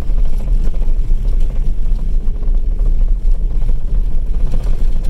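Steady, loud low rumble of a vehicle on the move.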